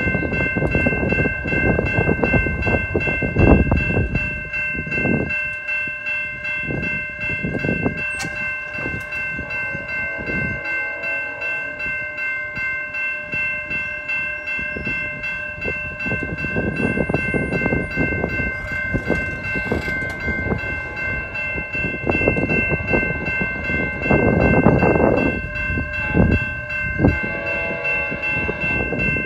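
Level-crossing warning bell ringing continuously in a fast, steady pattern, with a low rumble that comes and goes underneath.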